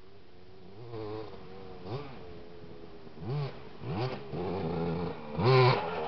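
Motocross bike engines revving, several quick rises in pitch with steadier running between. The loudest rev is near the end.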